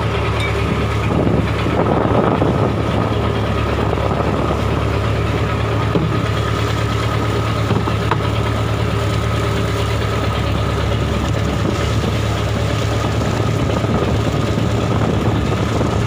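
Inboard engine of a wooden fishing trawler running steadily under way, a constant low drone.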